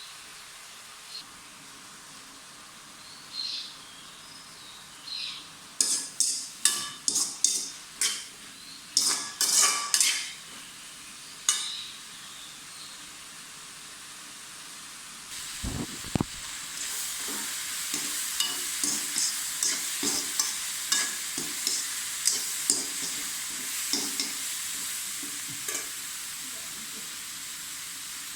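Stir-fry in a pan: a spatula knocks and scrapes against the pan in a quick run of sharp strokes, then, after a dull thump about halfway through, the pan sizzles steadily while the spatula keeps stirring with short scrapes roughly every half second to second.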